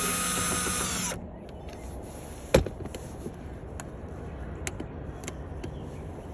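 Power drill spinning out a tail-light mounting screw, its motor whine stopping about a second in. A sharp click follows about two and a half seconds in, then a few light ticks.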